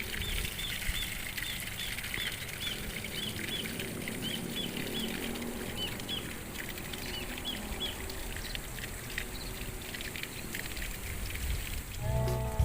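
A kingfisher (burung tengkek) calling a long run of short, repeated high notes, about three a second, which fade out a little past the middle. Guitar music comes in at the very end.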